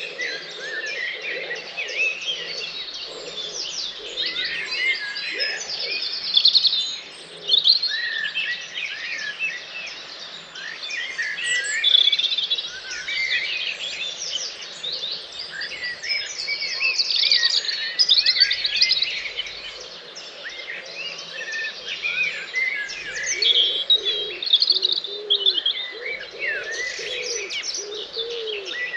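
Dawn chorus: many songbirds singing at once, with dense overlapping songs, trills and chirps, and some lower calls underneath.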